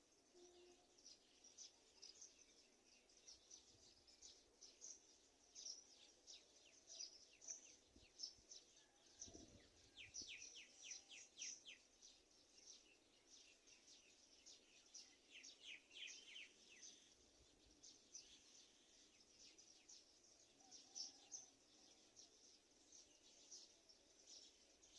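Faint, high-pitched bird chirping: rapid series of short chirps, coming in quicker runs about ten and sixteen seconds in, with a soft low thud just before the first run.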